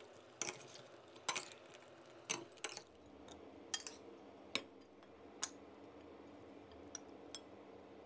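A metal spoon clinking against a glass mixing bowl while a salad is tossed: about nine separate light clinks at uneven intervals, more of them in the first half. A faint steady hum joins in the background about three seconds in.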